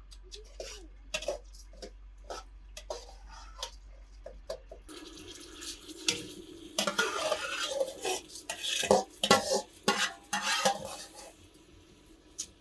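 Metal pots and utensils clinking, knocking and scraping during cooking or dish work, scattered at first and then busier with steady scraping about five seconds in, easing off near the end.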